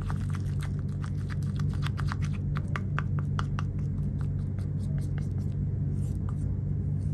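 A spoon stirring a thick gram-flour paste in a ceramic bowl: a quick, uneven run of clicks and scrapes as the spoon knocks and drags against the bowl, over a steady low hum.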